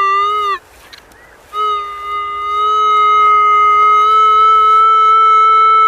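Minelab CTX 3030 metal detector sounding its target tone over a buried signal: a short note that ends about half a second in, then after a pause one long held note whose pitch creeps slightly upward. The tone is what leads to the guess that the target might be lead.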